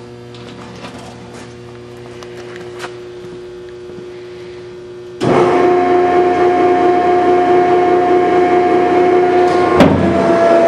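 Horizontal baler's 10-hp three-phase electric motor and hydraulic pump running with a steady hum. About five seconds in it turns suddenly much louder with a strong whine as the pump comes under load driving the hydraulic ram. Near the end the whine breaks off briefly and resumes slightly lower.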